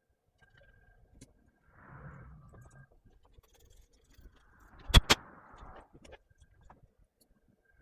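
Small hard parts being handled on a workbench: rustling and scraping, with two sharp clicks in quick succession about five seconds in.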